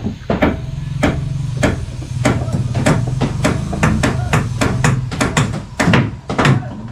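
Hammering on timber formwork: a quick, uneven run of sharp hammer blows on nails and wood, two to three a second, over a steady low hum.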